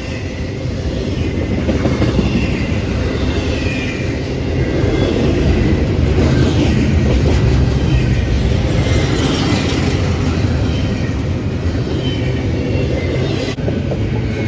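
Train passing at trackside: a steady, loud noise of wheels rolling on the rails, with faint high tones above it.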